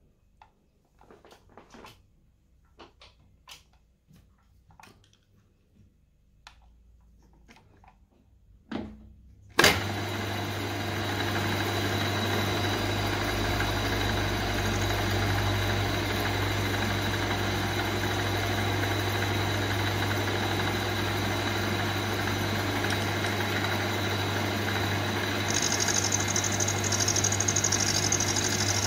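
A few light clicks and taps, then about ten seconds in a milling machine's spindle motor switches on with a sharp click and runs with a steady hum and whine. Near the end a higher hiss joins as the end mill starts cutting the brass workpiece.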